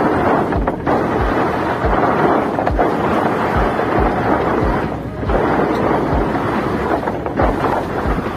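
Heavy wind rush buffeting the microphone, with road rumble, while riding on an open vehicle, under a steady low beat of background music.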